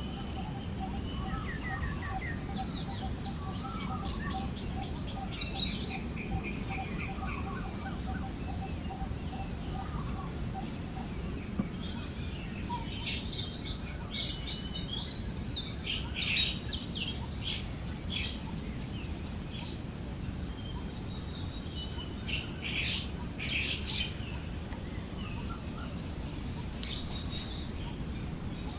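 Forest ambience: birds chirping in scattered bursts over a steady high insect drone and a low hiss of breeze. A low, evenly pulsing call runs through roughly the first ten seconds.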